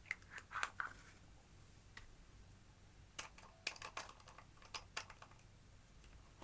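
Slime being squeezed and worked by hand, giving off small sticky clicks and pops: a cluster in the first second and another from about three to five seconds in.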